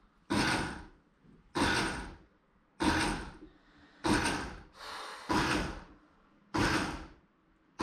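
Countertop blender running a pulsed ice-crushing cycle, with ice cubes being smashed by the blades. It comes in six short bursts of about half a second each, roughly one every 1.25 seconds, each starting sharply and dying away.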